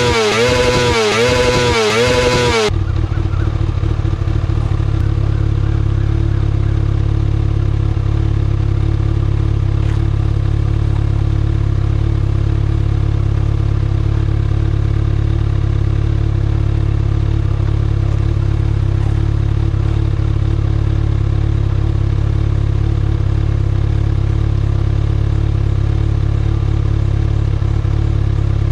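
2019 Kawasaki ZX-6R's inline-four engine through its stock exhaust, held at the rev limiter with the note cutting and recovering about twice a second. Under three seconds in the revs drop suddenly and the engine settles into a steady idle for the rest.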